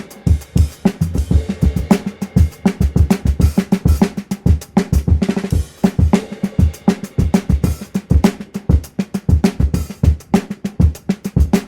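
Drum kit played solo at a sound check: fast, busy patterns of kick drum, snare and rimshots, with many quick strikes a second.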